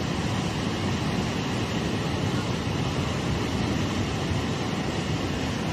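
Torrent of muddy floodwater rushing down a channel, a loud, steady rush of water without let-up.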